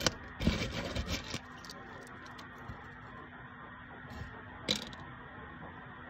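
Dry kinam agarwood chips rustling and clattering as a hand scoops a handful from a pile, in a second-long cluster of crunches about half a second in, with one more short clatter near the end.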